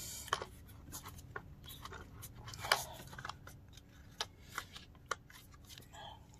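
Hard plastic and metal parts of an airless paint sprayer's pump assembly clicking and scraping under the hands as they are worked loose: scattered light clicks, with one louder click a little under three seconds in.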